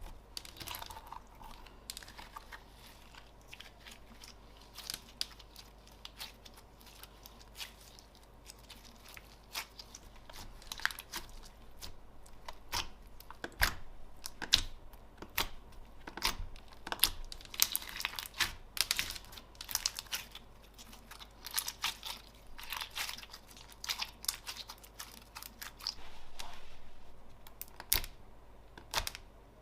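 Slime being squished, stretched and poked by hand, giving an irregular run of sticky clicks, crackles and small pops, with a denser crackling stretch near the end.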